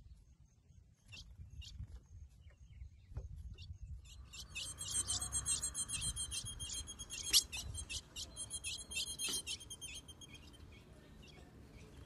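Female ultramarine grosbeak (azulão) calling. A few thin, high chips give way about four seconds in to a fast, continuous high twittering that runs for several seconds and thins out near the end. This is the call of a female soliciting mating.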